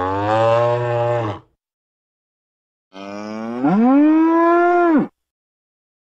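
Cow mooing twice. The first moo ends about a second and a half in; the second starts about three seconds in, rises in pitch partway through, holds, and cuts off about five seconds in.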